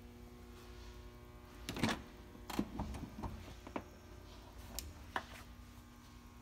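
Driver's door of a 1987 Mercedes 560SL being opened: a series of clicks and knocks from the handle and latch, the loudest a little under two seconds in, followed by several lighter clicks, over a steady electrical hum.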